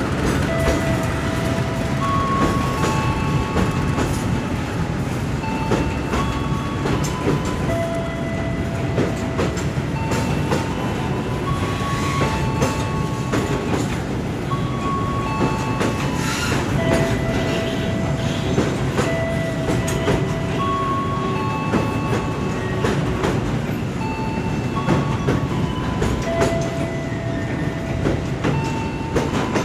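Container freight train rolling past, its flat wagons rumbling and clicking over the rail joints. Short steady squealing tones at several different pitches, each about a second long, come and go from the wheels.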